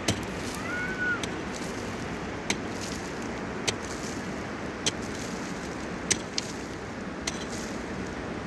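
Steady rushing of a fast mountain river, with sharp knocks repeating about once every second or so and a short chirp about a second in.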